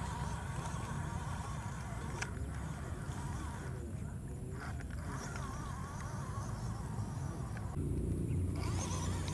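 Small electric motor and gearbox of an MN99s RC crawler running, with a whine that rises and falls as the throttle changes, over a steady low rumble that swells near the end.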